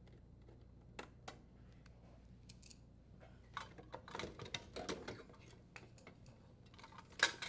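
Faint clicks of a screwdriver backing out the screws on a dishwasher's control board mounting bracket, then light rattling and scraping as the sheet-metal bracket is shifted aside, with one sharper clack near the end.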